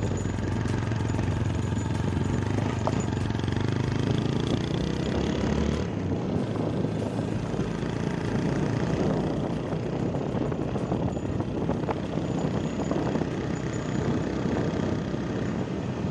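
A motorcycle being ridden on the road: its engine running steadily under a constant wash of wind and road noise.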